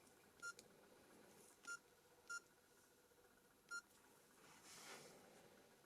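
Nokia E71 keypad tones: four short, quiet beeps as single keys are pressed, spaced irregularly over about three seconds. A faint soft rustle follows about five seconds in.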